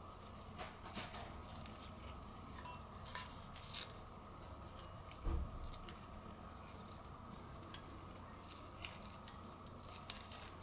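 Faint handling noises: scattered light clicks and taps, with a low thump about five seconds in, over a steady background hiss.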